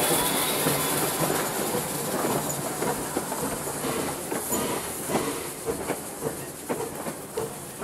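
Replica 'Leviathan' 4-4-0 steam locomotive moving away, its steam hiss fading steadily while wheels click and knock over the rail joints.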